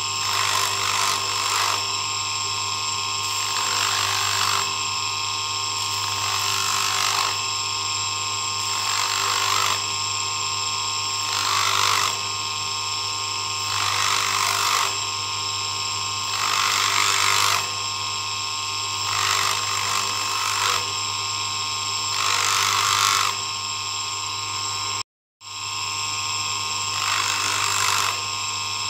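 Electric bench polishing motor running steadily, spinning a cone of 600-grit sandpaper on its tapered spindle. A metal ring is pressed onto the cone about every two to three seconds, each contact adding a louder hiss of sanding; this is the final, finest-grit sanding of the ring's inside. The sound cuts out for a moment about 25 seconds in.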